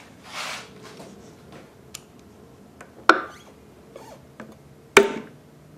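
Sharp metal-on-metal taps, a hammer striking a punch to spread the split end of a taper pin: a light tap, then two hard strikes about two seconds apart, each with a brief ring. A short rustle comes just before them.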